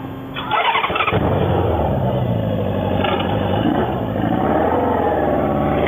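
Motorcycle engine starting about half a second in, then running with its pitch rising and falling as the throttle is worked.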